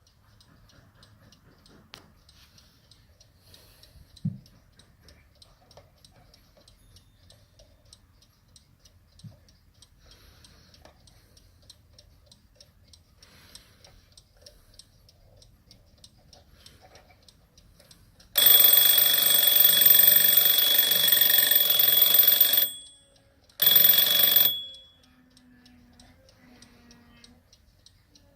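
Pre-war English Smiths alarm clock ticking softly, with a single knock a few seconds in; then its alarm bell rings loudly for about four seconds, stops, rings again for about a second, and the ticking goes on.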